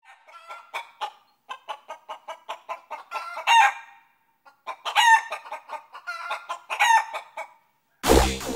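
Chicken clucking in quick runs, with a louder drawn-out call about three and a half seconds in and two more around five and seven seconds. Music with a beat starts near the end.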